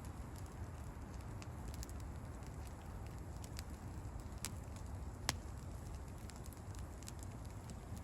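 Campfire burning with a steady low rustle and scattered sharp crackles, a louder pop about five seconds in.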